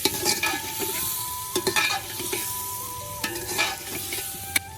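Food sizzling in a frying pan while it is stirred, the spoon scraping and knocking against the pan several times.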